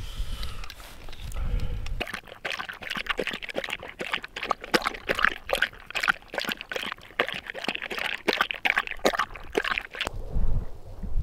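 A dog crunching dry kibble from its bowl: a quick, irregular run of crisp crunches and clicks for about eight seconds, starting about two seconds in. Wind rumbles on the microphone before and after.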